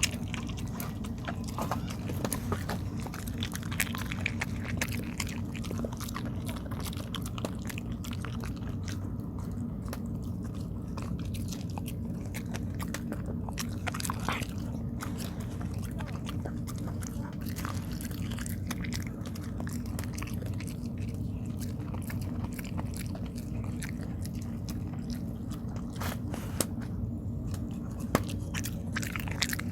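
A dog chewing and biting sticky tteok (Korean rice cake), a steady run of irregular mouth clicks and smacks over a constant low hum.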